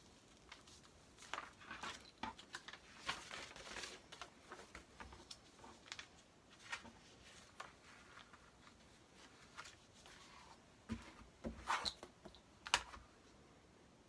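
Paper pattern and cotton fabric handled on a cutting mat: light rustling and scattered small taps and clicks. Near the end come a few louder knocks as a clear acrylic quilting ruler is laid down on the pattern.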